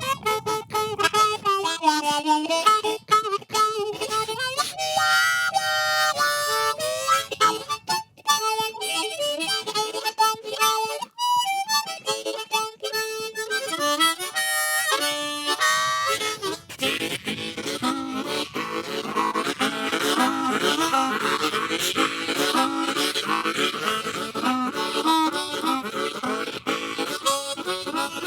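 Solo harmonica playing an instrumental break: a melody with bent, sliding notes, changing about halfway through to fast, dense rhythmic chords.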